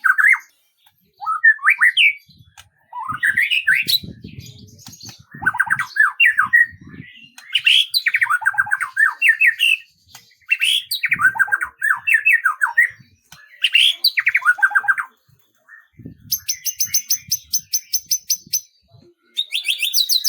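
A songbird singing: a run of short chirping phrases and quick trills with pauses between them, and a fast, very high-pitched even trill near the end.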